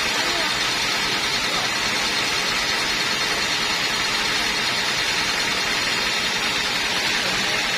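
Sawmill machine running steadily: a constant, even mechanical noise with no breaks.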